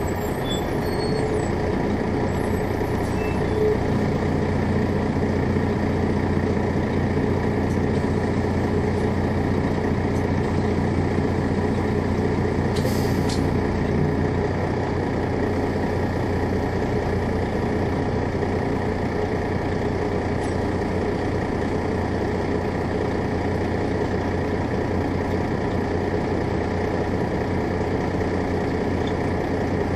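A 2001 MCI D4000 coach's Detroit Diesel Series 60 engine running steadily, with a short hiss of air about thirteen seconds in.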